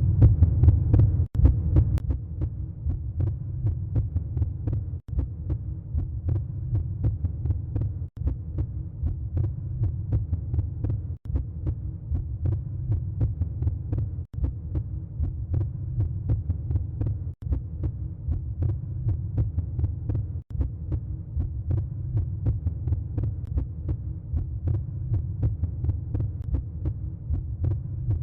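Low, steady throbbing hum made of rapid pulses, broken by a brief gap about every three seconds, as if a short track were looping.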